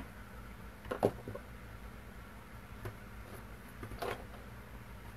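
Low steady room hum with a few light knocks and clicks as things are handled on a tabletop, the loudest about a second in and another near four seconds.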